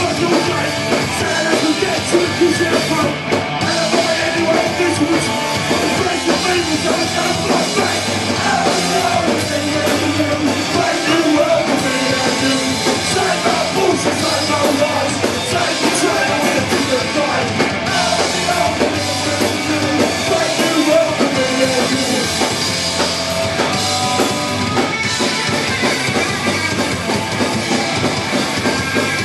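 Punk rock band playing live: electric guitar and drum kit driving a fast rock song, with a singer shouting the vocal into a microphone.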